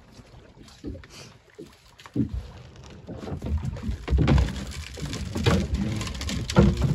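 Water sloshing and knocking against a small open fishing boat as a crab-trap line is hauled in by hand. The noise gets louder and more irregular about two to three seconds in.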